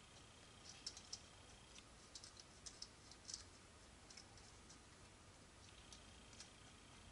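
Faint, scattered small clicks and taps of bolts being started by hand into a machined aluminium fitting on an engine block, mostly in the first half, over near silence.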